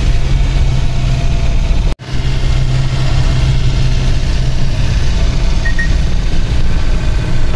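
Bus engine running steadily while the bus drives, heard inside the cabin as a low hum with road noise. The sound cuts out for a split second about two seconds in.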